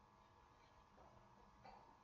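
Near silence: faint room tone with two very faint ticks.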